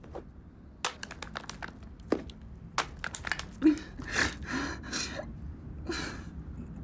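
A pen scratching and scribbling over a framed photograph: a run of sharp clicks, then several short scratchy strokes.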